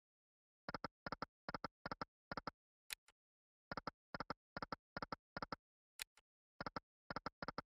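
EGT Royal Secrets online video slot sound effects: sets of five short double clicks in quick succession as the reels stop one after another, with a single sharper click between sets. The pattern repeats about every three seconds.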